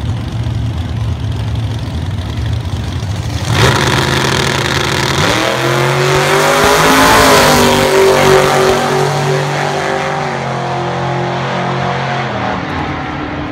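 Two V8 drag cars, a nitrous small-block Chevy 1968 Camaro and a supercharged big-tire drag car, idling at the start line, then launching at full throttle about three and a half seconds in. The engine note climbs steeply and holds, then fades as the cars run away down the track.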